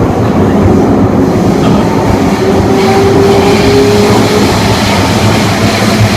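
Inside a Kawasaki C151 metro train car running: a loud, steady rumble of wheels and motors. A faint steady tone comes in for about two seconds midway.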